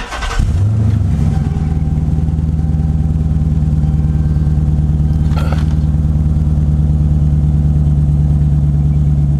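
Dodge Charger engine starting on the push button: a brief crank, the revs flaring up about a second in, then settling into a steady idle.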